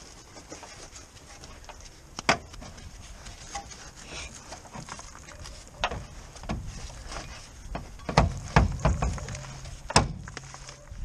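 Scattered knocks and clunks of hands and tools working on a car's underside, loudest in a cluster about eight to nine seconds in, with sharp single knocks at about two and ten seconds.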